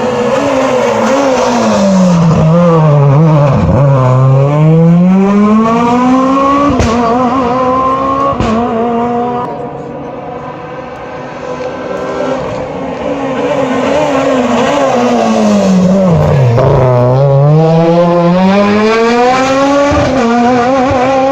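Two rally cars in turn, each braking down into a tight hairpin with the engine revs falling, then accelerating hard out of it with the revs climbing through the gears. The first car gives a couple of sharp cracks as it pulls away.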